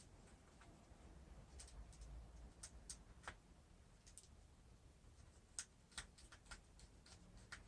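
Near silence broken by faint, irregular clicks and taps of small parts being handled.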